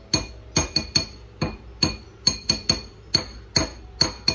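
A spoon clinking again and again against a bowl as marshmallow fluff is scooped in, about three sharp clinks a second, each with a short bright ring.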